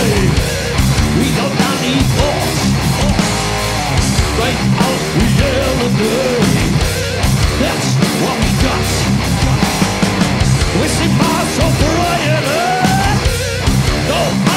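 Heavy metal band playing live: distorted electric guitars over bass and fast drums, loud and without a break.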